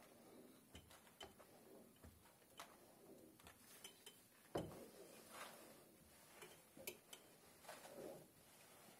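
Near silence, broken by a few faint scattered clicks and light ticks, the most distinct about four and a half seconds in.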